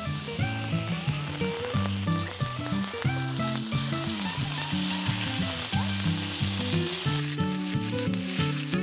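Tomahawk steak and pork neck searing on a hot griddle pan, sizzling steadily. Near the end the sizzle breaks into many quick pops and crackles.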